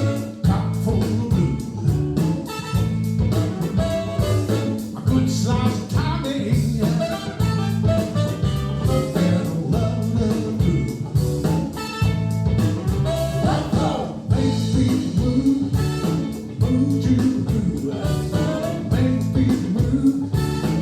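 A song with a singing voice, guitar, drums and a strong, steady bass line, played back through Monitor Audio Monitor 3 three-way floor-standing speakers.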